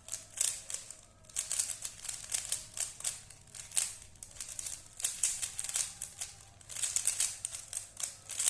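Rubik's Cube being twisted rapidly by hand: quick runs of plastic clicks and clacks as the layers turn, with short pauses between runs.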